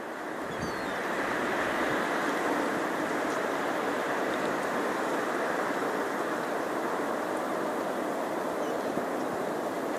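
Steady rush of small waves washing against a rocky shore, fading in over the first second.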